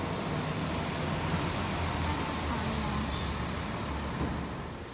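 Motor vehicle and traffic noise: a steady low rumble of running engines.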